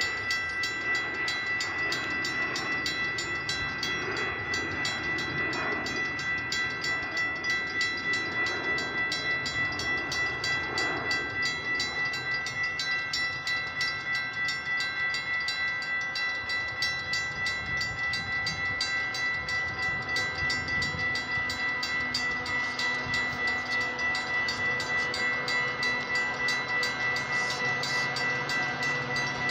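Railroad crossing warning bell ringing in a rapid, regular pulse while the crossing gates lower and stay down. A low rumble builds underneath it in the second half.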